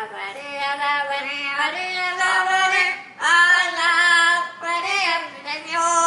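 Amazon parrots singing a wordless, human-like melody, with long wavering notes that slide up and down. Two long phrases, broken by a short pause about three seconds in.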